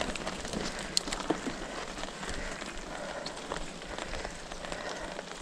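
Mountain bike tyres rolling over loose, stony ground: a steady crackling hiss with many small clicks of grit and stones.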